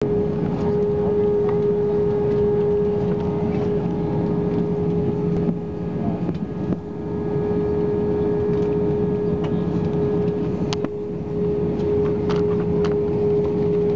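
Cabin noise of an Airbus A321 airliner taxiing: a steady engine and cabin hum with a constant mid-pitched tone running through it, and a few faint clicks near the end.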